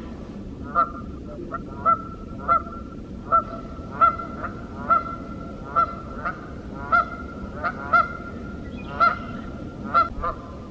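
Canada geese honking again and again, a loud honk roughly every half second to second.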